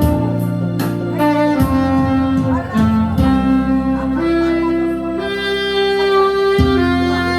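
Saxophone playing a slow melody in long held notes, one note changing to the next every second or so, over a backing accompaniment track.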